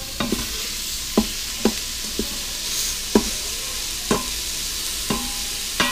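Italian sausage sizzling as it browns in an Instant Pot's stainless steel inner pot on the sauté setting. A wooden spoon stirs it, knocking sharply against the pot about six times.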